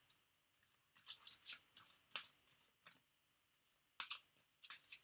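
Tarot cards being handled and shuffled by hand: several faint, short swishes of card against card, in small clusters.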